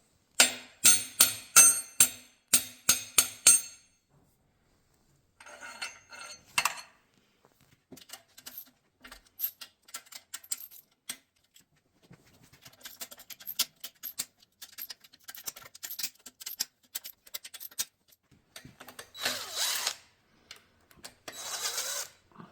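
Metal tool work on an engine being taken apart. About nine sharp, ringing metal strikes come in quick succession over the first few seconds, then a shorter ringing clatter. Scattered light clicks and clinks of tools and parts follow, and near the end come two short hissing, whirring bursts.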